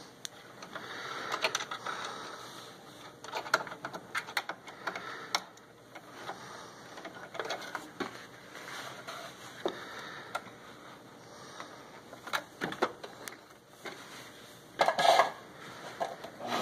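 Scattered clicks and knocks from a Singer Talent sewing machine's levers and handwheel, with fabric rustling, as the fabric is set under the presser foot; a louder burst comes near the end.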